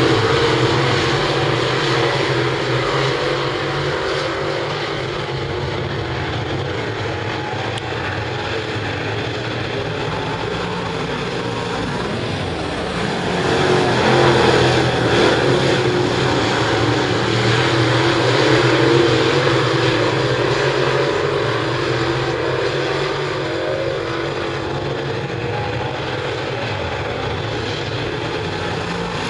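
Several dirt late model race cars' V8 engines running hard on a dirt oval, a continuous mix of engine noise that swells louder as cars pass near the middle.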